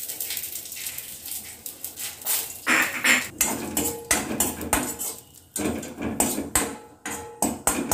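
Metal spatula stirring in a kadai, clinking and scraping against the pan in irregular knocks, as mustard seeds and dried red chillies fry in mustard oil for a tempering.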